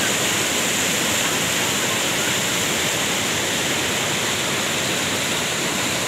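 Rocky stream water rushing over boulders and through small rapids: a steady, even rush of moving water.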